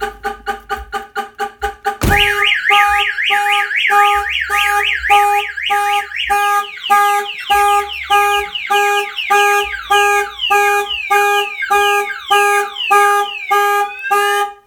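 Viper car alarm siren set off by a door being opened: a pulsing tone, fast at first, then a loud multi-tone siren starting about two seconds in. The siren first warbles rapidly up and down, then changes to repeated falling sweeps over the slower pulsing. It cuts off abruptly at the end.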